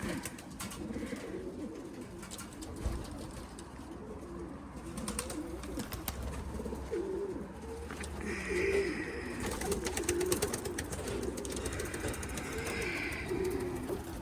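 Racing pigeons cooing, several low wavering calls overlapping one another without a break.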